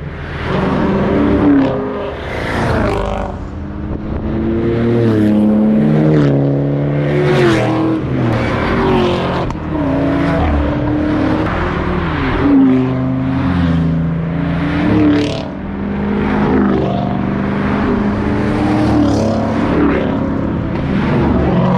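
A string of sports cars driving past one after another, engines accelerating and revving, with pitch changing as each car passes and shifts.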